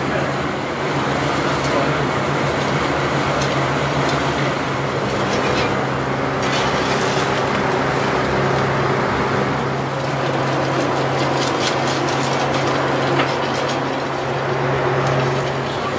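Gaz nougat mixing machine running with a steady low hum while it works the nougat mass. At times metal scoops through a steel tray of pistachios and almonds and nuts pour into the bowl, adding short rattling and scraping.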